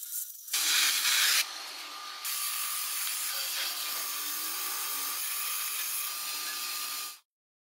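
Gas welding torch flame hissing. It starts loud about half a second in, then holds a steady hiss while the flame melts filler rod into a steel body panel, and it cuts off abruptly near the end.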